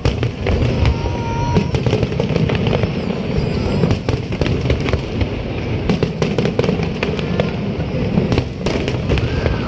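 Fireworks going off in quick succession: many sharp bangs and crackles over a steady low rumble.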